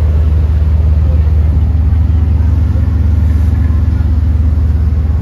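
Passenger ferry boat's engine running steadily, heard on board: a loud, low, even throb with a fast regular pulse.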